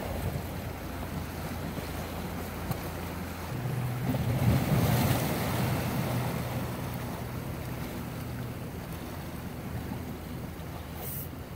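Wind buffeting the microphone over waves washing against the shoreline rocks, swelling to its loudest about five seconds in, with a low steady hum underneath.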